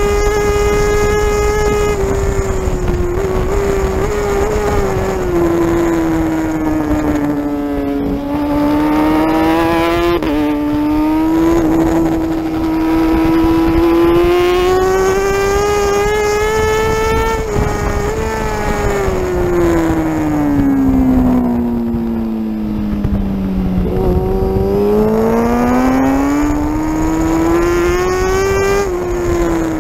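Racing motorcycle engine at high revs heard onboard at speed, its note sweeping down under braking and back up under hard acceleration several times, with sudden steps in pitch at gear changes.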